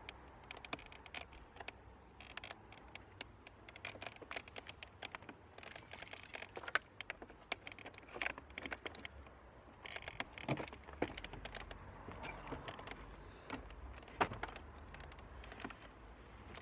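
Irregular clicks, taps and knocks of hand tools and plastic trim as a car's interior door panel is worked loose and taken off.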